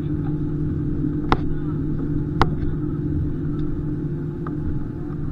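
Steady low hum and rumble inside the cabin of an Airbus A320 on the ground after landing, with two sharp clicks about a second apart.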